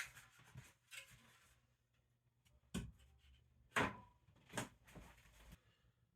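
Half a dozen light, scattered knocks and taps, with a brief scrape about a second in: tools and a level being handled against a wall.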